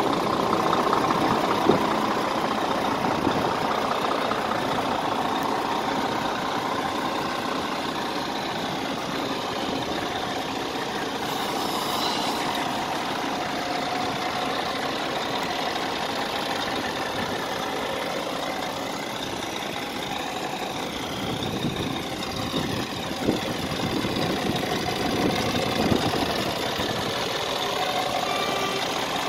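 Scania R370 tractor unit's 370 hp Euro 6 diesel engine idling steadily, with a few short clicks over the top.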